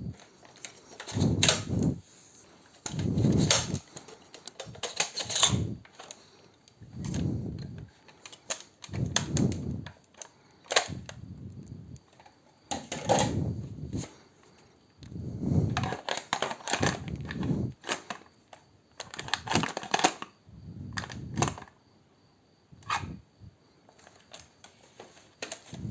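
An airsoft gun being reloaded: clicking and clacking of plastic and metal parts in short bursts about every two seconds.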